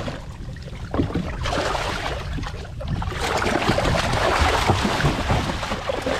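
Water splashing and churning as a small hooked mako shark thrashes at the surface against the boat's hull, with wind buffeting the microphone. The splashing grows busier about halfway through.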